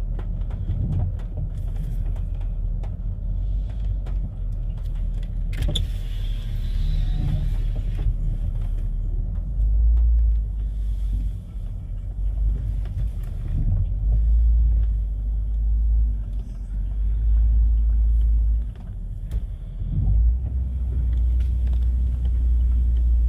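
Gusty wind buffeting the microphone: a low rumble that surges and drops unevenly, with a single sharp click about six seconds in.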